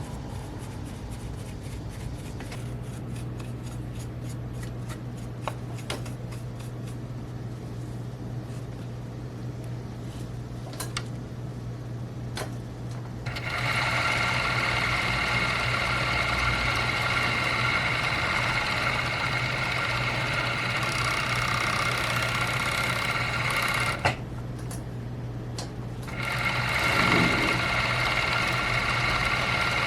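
Electric sewing machine: a low steady hum with light ticking, then about halfway through the machine starts stitching with a steady mechanical whine. It stops for about two seconds with a click, then runs again near the end.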